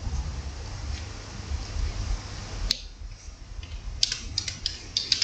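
A low, steady rumble, then one sharp click and, near the end, a quick cluster of light clicks and taps, as a word is put in its column.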